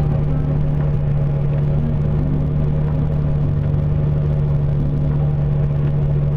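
A vehicle engine running steadily, a constant low hum that stays unchanged throughout.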